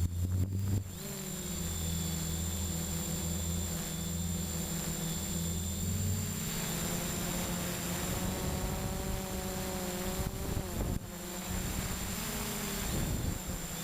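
Storm 6 hexcopter's electric motors and propellers droning in flight, heard from the GoPro mounted on the drone. The hum shifts in pitch a couple of times as the motors change speed, and a steady high whine sits above it.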